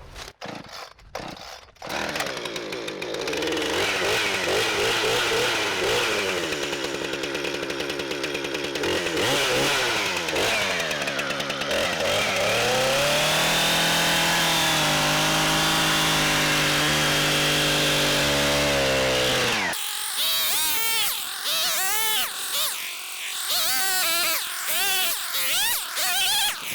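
Two-stroke chainsaw running and cutting down into thick pond ice, engine pitch wavering, then dropping and holding low under load, before it cuts off about twenty seconds in. A quieter, irregular wavering sound follows.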